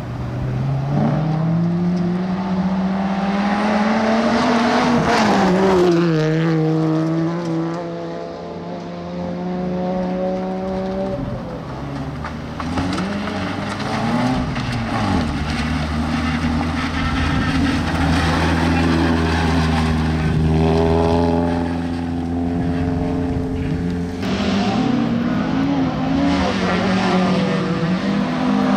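Rally car engines revving hard and accelerating through the gears, the pitch climbing and then dropping at each shift, with steadier running between. A Peugeot 206 rally car is heard pulling away on gravel, and near the end a Ford Escort Mk2 rally car comes through.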